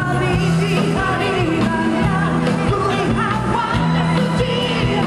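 Pop-rock song playing: a singer's voice over a band accompaniment, with steady held bass notes and a constant beat.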